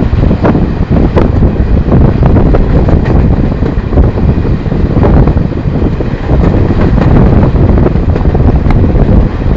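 Passenger train running at speed, loud wind buffeting the microphone over a steady low rumble, with faint clicks of wheels over rail joints.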